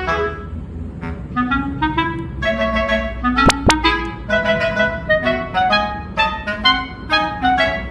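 Background instrumental music: a melody of short, detached notes over a bass line, with two sharp clicks about three and a half seconds in.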